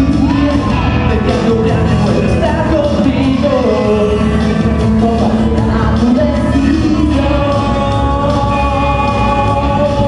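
A song played loud through a PA, with a live voice singing into a microphone over it. The melody bends early on and settles into long held notes in the last few seconds.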